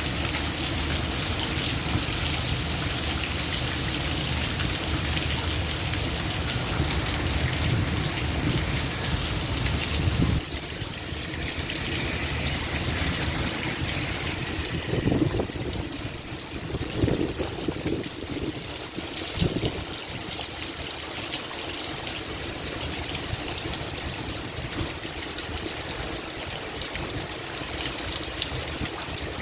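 Heavy rain pouring down in strong wind, with a deep rumble for about the first third that drops away suddenly. After that the rain and running water carry on steadily, with a few brief knocks near the middle.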